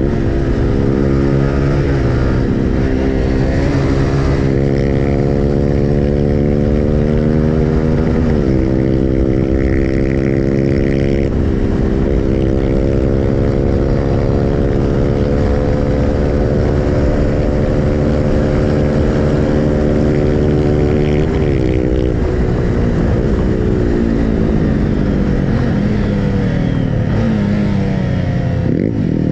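A 150 cc motorcycle engine running under way, its pitch climbing slowly as it pulls through each gear and dropping sharply at each gear change, several times.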